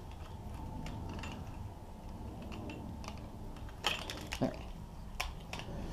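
Scattered light clicks and taps from a set of keys and a plastic alarm key fob being handled, over a faint steady hum.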